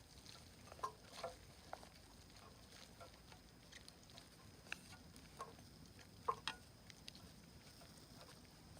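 Wood campfire crackling faintly, with irregular sharp pops, two of the loudest close together a little past six seconds in.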